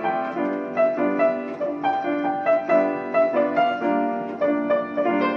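Piano playing a melody in an even run of notes, a new note about every third of a second.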